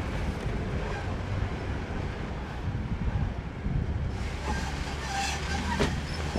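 Off-road vehicle driving slowly over a rough dirt trail: a steady low engine and road rumble, with a few sharp knocks near the end.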